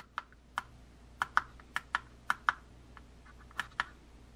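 Menu buttons on the side of an Auto-Vox TW1 backup camera monitor being pressed: a string of about a dozen small, sharp plastic clicks at an uneven pace, several in quick pairs.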